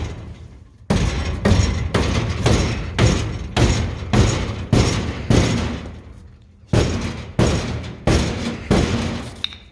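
Hammer blows on the rusty steel fender of a 1950s cab-over truck, pounding a dent out of the fender's bottom: about fourteen heavy thuds at roughly two a second, with a short pause a little past the middle.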